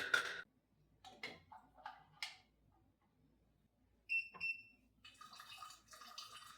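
Kitchen handling sounds: a loud clatter right at the start, a run of small knocks, and two brief ringing clinks a little after four seconds in, then a soft hiss like running water near the end.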